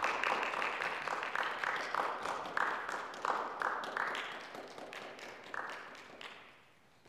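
Audience applauding, the clapping gradually thinning and dying away near the end.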